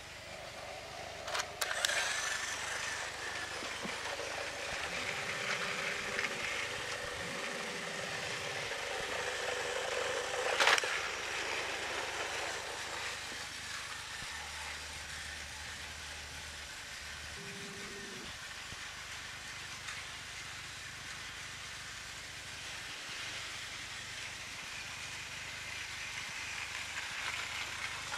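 Battery-powered Thomas & Friends toy train running on its track: a small motor running steadily with rattling from the wheels and track, and a few sharp clicks, the loudest about ten and a half seconds in.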